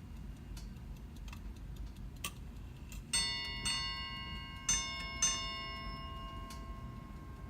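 A Chelsea Ship's Bell clock movement strikes its bell with a leather-covered hammer: four strokes in two pairs, each ringing on with a resonant, fairly low tone. Before the strokes there is faint ticking from the movement.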